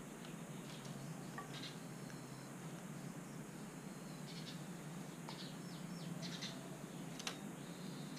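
Birds chirping in short, high, scattered calls, a few of them gliding, over a steady low hum, with one sharp click about seven seconds in.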